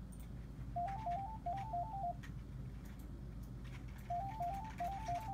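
A telephone waiting melody of quick electronic beeps, heard over the phone line: two short phrases of stepping notes, one about a second in and another near the end.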